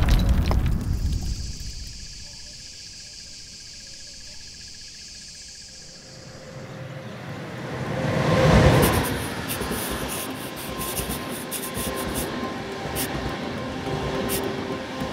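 Film sound-design whooshes: one dies away at the start, and after a stretch of soft high hiss a second swells up to a peak about eight and a half seconds in. After it comes a low ambient bed with light, sharp scratchy ticks.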